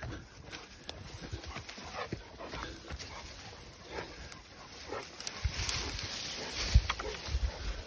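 Large mastiff-type dog making short, scattered vocal sounds as it pushes through ferns and undergrowth, with rustling of the fronds and a few dull thumps in the second half.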